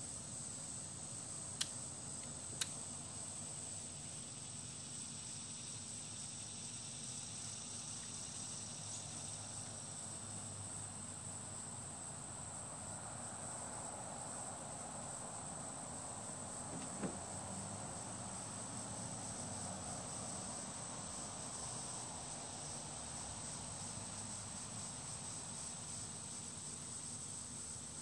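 Insects trilling steadily at a high pitch, cricket-like, over a background hiss, with a few faint clicks.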